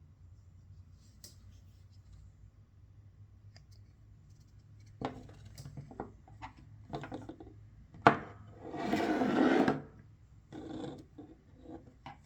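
Small clicks and rubbing from handling a folding pocket knife, with a sharp click a little after eight seconds in, followed by about a second of scraping, and a shorter rub near the end.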